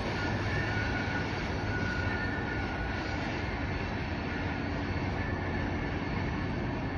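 Freight train cars rolling on the rails in a steady rumble, with faint high squealing tones from the wheels that come and go.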